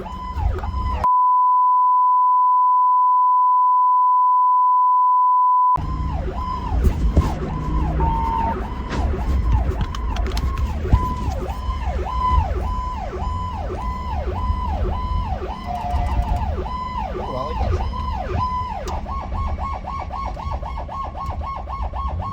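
Electronic emergency-vehicle siren sounding in a rapid up-and-down cycle, about two sweeps a second, over the low rumble of the vehicle on the move. About a second in, it is replaced for nearly five seconds by a steady, loud single-pitch beep; near the end the siren changes to a faster pulsing warble.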